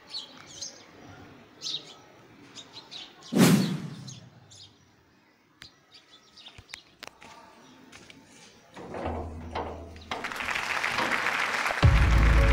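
Scattered bird chirps and a few sharp clicks, with one loud sweep falling in pitch about three and a half seconds in. From about ten seconds a noisy wash rises and turns into music with a heavy bass near the end.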